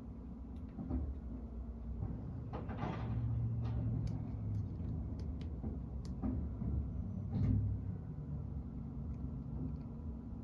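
Rear-loading garbage truck's engine running steadily, the hum swelling for a couple of seconds about three seconds in. Plastic wheeled bins rattle and knock as they are handled at the hopper, with a louder rattle about three seconds in and again near the end.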